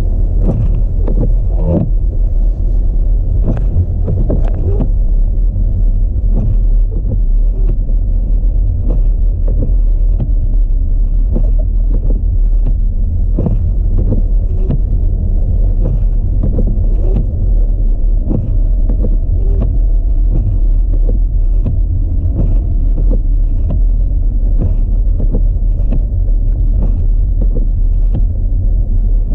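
Audi A4 driving on a snowy road: a steady, loud low rumble of engine and tyres, with frequent small knocks throughout.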